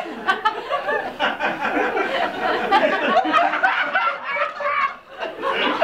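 Live audience chuckling and snickering, scattered laughter from many people, with a brief lull about five seconds in.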